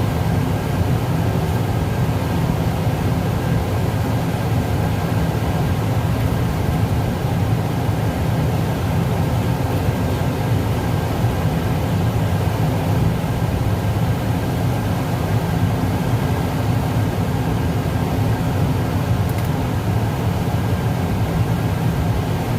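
Tractor engine running steadily, heard from inside the cab as a constant low rumble.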